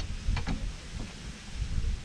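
A few short clicks and knocks from hand tools working on the Mustang's rear suspension, over a low wind rumble on the microphone.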